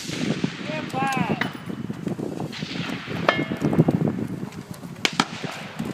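Voices talking quietly on the firing line right after a rifle shot, with a short pitched sound about a second in and a single sharp crack or click about five seconds in.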